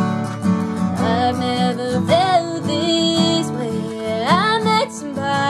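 A woman singing a country song while playing acoustic guitar, her voice holding and bending long notes over the guitar chords.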